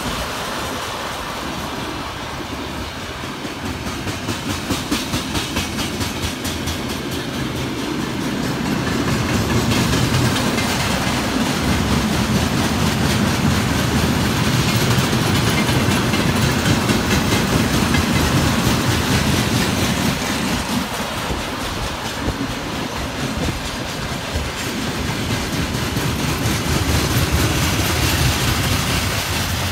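Freight train wagons (tank cars, covered hoppers and open gondolas) rolling past close by, a steady rumble with the rhythmic clickety-clack of their wheels over the rail joints.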